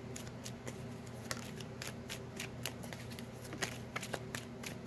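Tarot cards being shuffled by hand, one packet passed into the other: a run of soft, irregular card clicks and flicks, a few sharper ones standing out.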